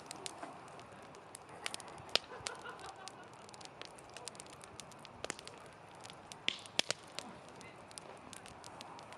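Wood campfire crackling: irregular sharp pops and snaps over a steady soft hiss of burning wood.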